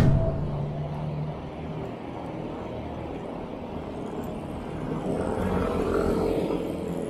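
Road traffic noise with vehicle engines running, swelling as a vehicle comes close and passes about five to six seconds in.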